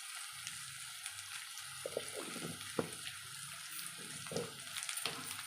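Sliced ivy gourd frying in oil in an open pan: a steady faint sizzle, with a few light knocks as it is stirred.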